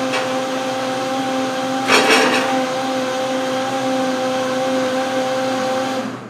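Vitamix blender motor running steadily with a whine, blending a fruit and soy-milk smoothie, with a brief louder surge about two seconds in; it shuts off just before the end.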